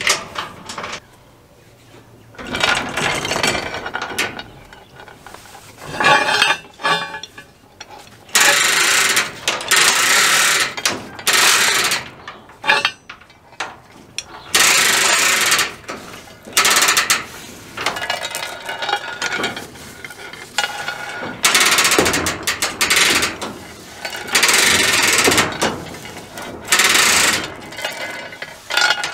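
Manual chain hoist being worked by hand to lift a load: repeated pulls on the hand chain, each a burst of chain links rattling through the hoist with the ratchet pawl clicking, about one pull every second or two, after a quieter first couple of seconds.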